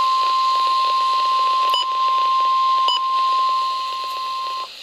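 NOAA Weather Radio 1050 Hz warning alarm tone: one long steady beep over radio hiss, broken by two brief clicks about two and three seconds in, and cutting off near the end. The tone signals that an alert follows, here a severe thunderstorm watch.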